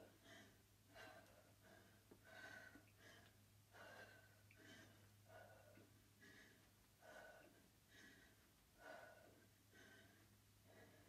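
Faint, rhythmic breathing of a woman working hard through an ab exercise: short, hard breaths about once a second.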